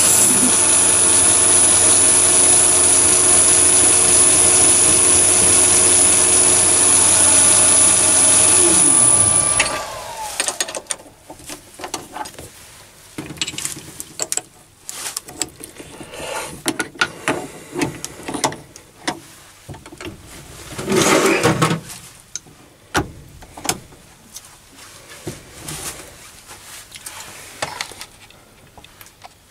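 Mini metal lathe running with a brass part in its chuck: a steady motor whine with a high-pitched tone. About nine seconds in it is switched off and winds down. After that come scattered metal clinks and knocks of tools and parts being handled at the stopped lathe, with one louder scraping rattle about two-thirds of the way through.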